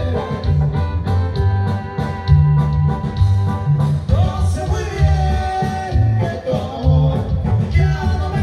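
A live band playing a song, with a strong bass line and a steady drumbeat under held melodic lines.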